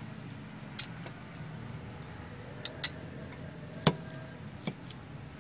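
A handful of sharp, separate clinks and knocks, about six, as a metal spoon and a stone pestle strike a glass bowl and a stone mortar while fried tomatoes are tipped in and crushed into chilli paste.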